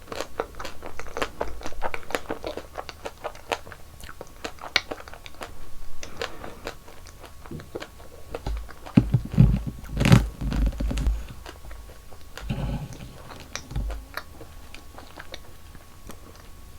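Close-miked eating: crisp bites and crunching, with wet chewing clicks. A cluster of louder, deeper thumps comes about nine to eleven seconds in.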